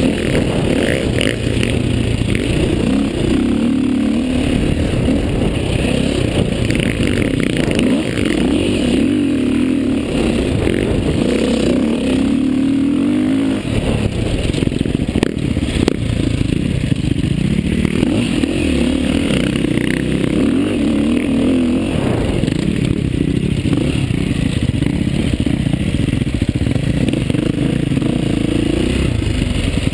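Dirt bike engine heard up close while riding off-road, its revs repeatedly climbing and then falling back as the rider accelerates and backs off.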